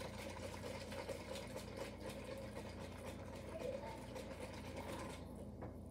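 Chocolate milk sloshing inside a plastic sippy cup shaken hard by hand, a steady rapid churning that stops about five seconds in.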